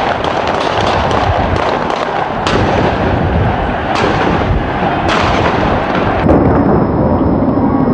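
Several sharp bangs about a second apart, clearest in the middle of the stretch, over a loud, constant din of street unrest; the bangs are shots or blasts in a street clash.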